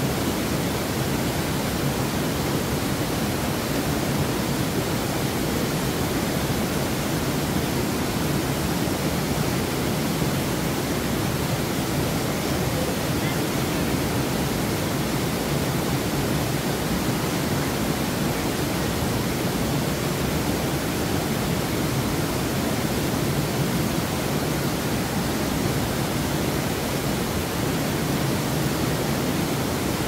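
Steady rush of a small waterfall and mountain stream pouring into a deep plunge pool: an even, unbroken noise.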